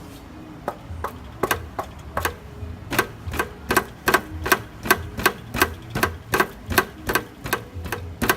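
Sharp metallic knocks at the rear exhaust section of a Mercedes-Benz W211, scattered at first, then coming steadily at about two or three a second, over a low hum.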